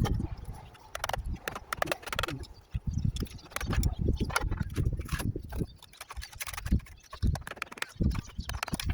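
Irregular hard knocks, clinks and low thuds of work on a clay-tiled roof: tiles and the old flashing being handled and shifted, with steps on the tiles.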